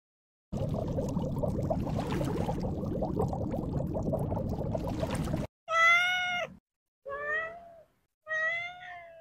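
A steady noisy rush for about five seconds cuts off abruptly. A cat then meows three times, each meow under a second long, the first the loudest.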